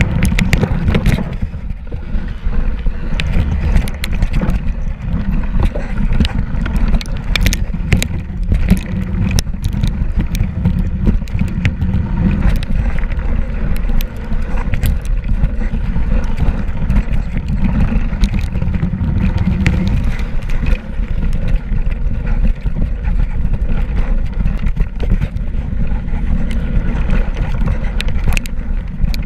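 Mountain bike riding down a snow-covered trail, heard from a camera mounted on the bike: a loud, steady low rumble with frequent clicks and knocks as the bike rattles over the bumpy ground.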